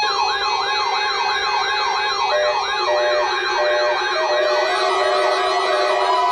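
Several electronic alarm tones sounding at once: a fast, repeating falling wail about three times a second, a higher wavering tone above it, and steady held tones and short beeps underneath. The wail fades out after about four seconds, leaving the steady tones and beeps.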